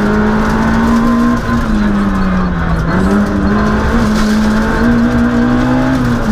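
Citroën Saxo Group A6 rally car's 1.6-litre four-cylinder engine running hard at speed, heard from inside the cabin. Its pitch sags through the first half, jumps back up about three seconds in, holds, then drops near the end.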